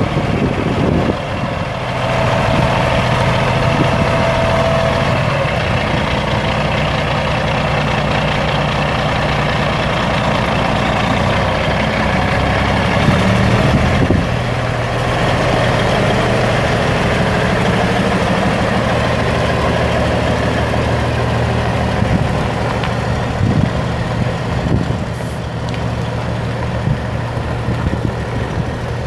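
Caterpillar 3406 straight-six turbo diesel of a 1998 Kenworth T600 semi tractor running as the truck drives slowly at low speed, a steady engine hum whose note shifts briefly a little before halfway.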